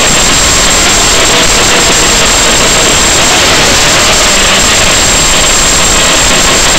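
Loud, steady static hiss, with a faint whine that wavers up and down in pitch.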